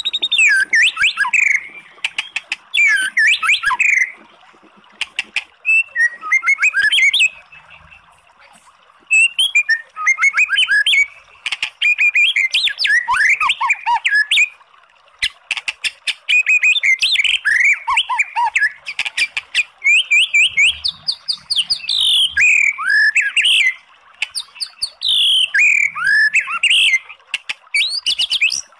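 White-rumped shama (murai batu) singing loud, varied phrases of rapid whistles, sweeping notes and fast clicky trills, broken by short pauses of a second or two.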